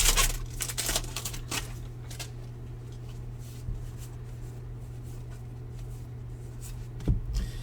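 Trading cards being flipped through by hand: a quick run of papery flicks and slides in the first couple of seconds, then only occasional rustles, over a steady low hum, with a brief bump near the end.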